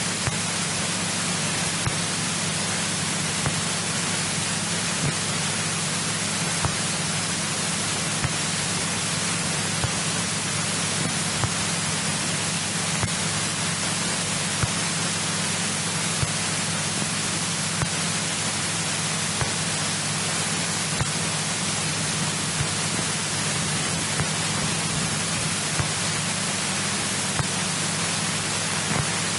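Steady hiss of the aircraft's radio and intercom audio feed, with a low steady hum underneath and a few faint ticks.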